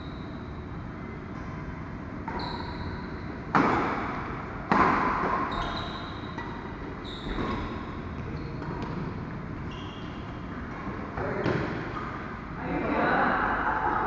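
Badminton rackets striking a shuttlecock during a doubles rally: a series of sharp hits, the two loudest about a second apart a few seconds in, with short high squeaks between them. Voices rise near the end.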